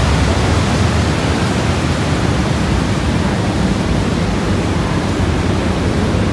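Horseshoe Falls at Niagara, heard from the rock tunnels behind it: a loud, steady rushing of falling water, heaviest in the deep low end and without a break.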